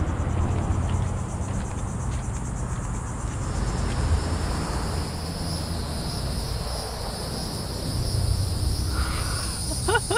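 Cicadas buzzing loudly in the trees: a steady, high, continuous drone that comes in a few seconds in, over a constant low rumble.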